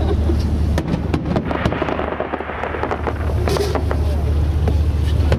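Fireworks going off: a rapid, irregular series of bangs and crackles over a steady low rumble.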